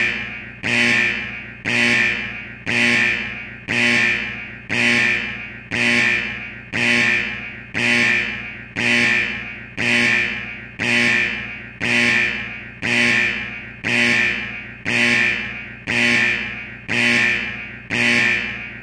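A ringing electronic chime struck about once a second. Each tone starts sharply and dies away just as the next one sounds.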